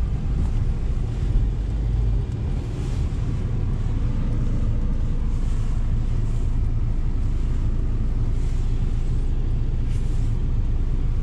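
Lada Niva Travel's 1.7-litre four-cylinder engine and tyres running steadily while driving on a snowy road, heard as a low rumble inside the cabin.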